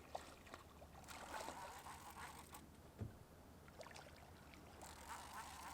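Near silence: faint scattered clicks and light hissy noises, with one soft low thump about three seconds in, over a steady low hum.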